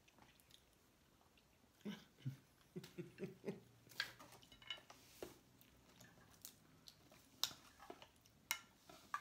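Scattered sharp clicks and clatter of a meal being eaten at a table: crab shells, utensils and a paper takeout box handled. About two seconds in there is a short run of brief, low voice-like sounds.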